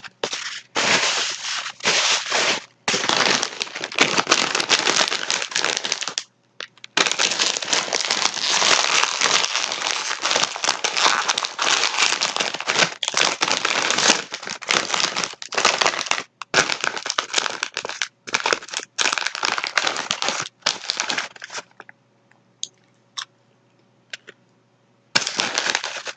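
Crinkly plastic packaging rustling and crackling as it is handled, in long stretches with short pauses, then thinning to a few small clicks near the end.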